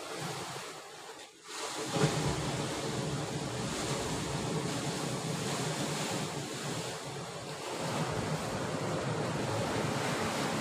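Sea waves washing against a rocky shore, a steady surf noise with wind buffeting the microphone; it dips briefly about a second and a half in.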